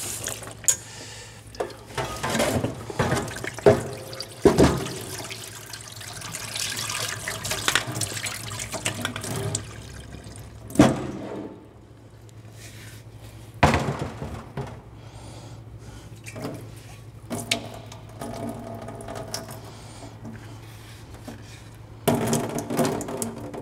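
Tap water running into a small 5-litre oak barrel and sloshing inside as it is rinsed out, with several sharp knocks and splashes as the barrel is handled and tipped out over a steel sink.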